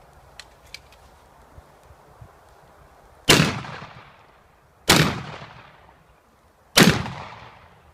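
Three shotgun shots, about a second and a half to two seconds apart, each followed by a long fading tail. A few faint ticks come before them.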